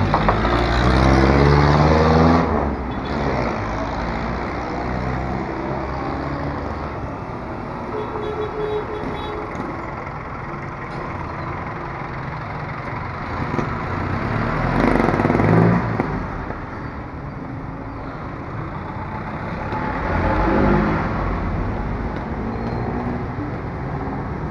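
Street traffic of passing motor vehicles. Near the start one engine accelerates close by with a rising note, and two more vehicles pass loudly later on.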